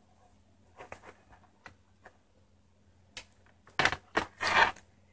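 Handling noise of a doll and its hair on a desk: a few faint ticks, then a short cluster of rustles and light knocks from about three seconds in.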